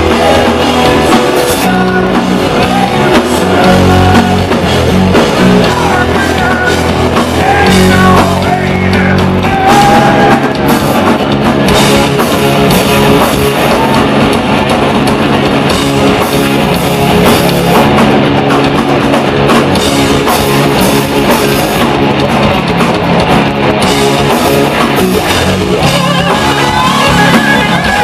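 Southern hard-rock band playing live and loud: electric guitars, bass and drum kit.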